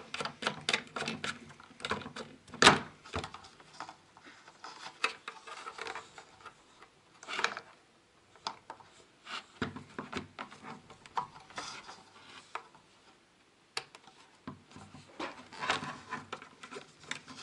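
Handling noise of cable plugs being fitted into the back of a Humminbird Helix 5 fish finder head unit: scattered clicks and rubbing, with one sharper click about three seconds in.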